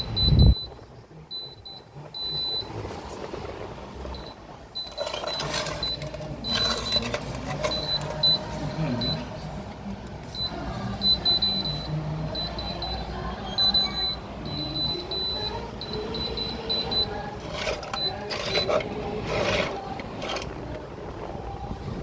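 Electronic beeping from a Holmes tower fan's control panel, a high tone that keeps sounding in short runs over the running fan, as the fan's buttons trigger themselves; the owner blames water that has got into the buttons. Louder knocks and rustles come twice, about five seconds in and again near the end.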